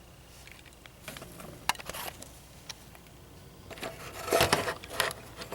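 Handling noise: scattered clicks, taps and rustles, busiest about four to five seconds in.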